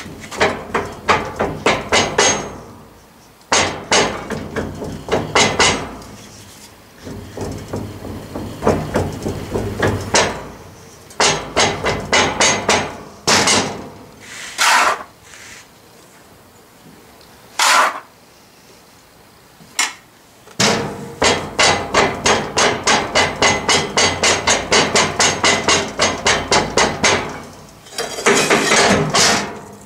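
Wooden hand rammer packing oil-bonded foundry sand into a molding flask: runs of dull thuds, about four a second at their quickest, broken by short pauses.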